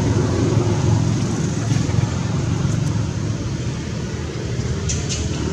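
Steady low rumbling background noise, with two faint clicks near the end.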